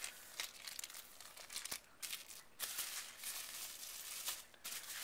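Plastic packaging crinkling and rustling in hands, with irregular small crackles and pauses, as a red dot sight is worked out of its plastic bag.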